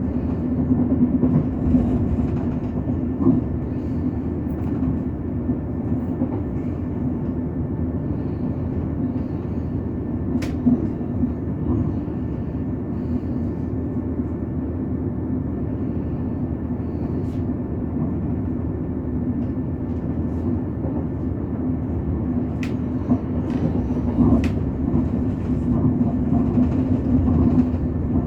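Passenger train running along the line: a steady low rumble with a constant hum, broken by a few sharp clicks, once about a third of the way in and twice near the end.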